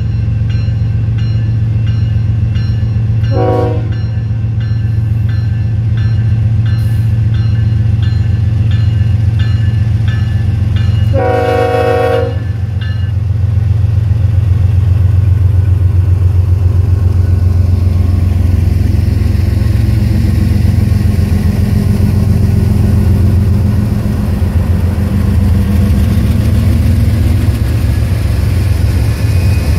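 Union Pacific diesel locomotives running under load as a stopped train gets moving again, with a steady low engine drone. The locomotive bell rings about twice a second for the first dozen seconds, and the horn sounds twice: a short blast about three and a half seconds in and a longer one around eleven seconds.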